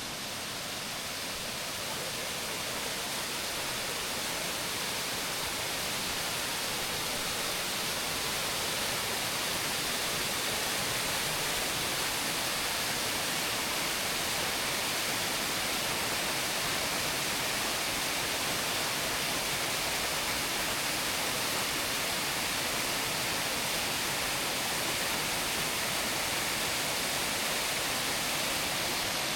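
Waterfall rushing steadily, growing gradually louder over the first several seconds and then holding even.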